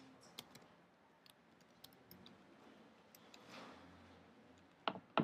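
Sparse, faint clicks of computer keys being typed, with two sharper clicks near the end.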